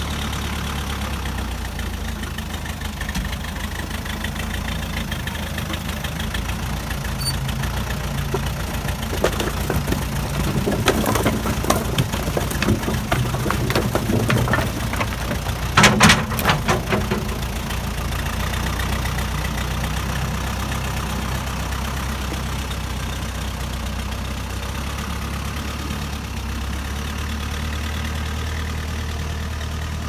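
1980 Case 580D backhoe's engine running steadily while its front loader bucket dumps split firewood onto a pile. The logs clatter and tumble for several seconds, loudest a little past halfway through.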